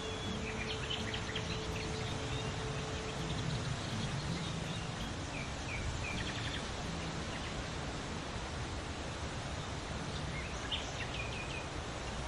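Small songbirds chirping in quick short series three times, near the start, around the middle and near the end, over a steady rushing outdoor background.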